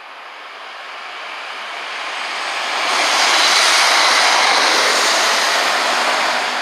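A train passing through at speed: a rushing roar of wheels and engines that swells to a peak about three seconds in, holds, and starts to fade near the end.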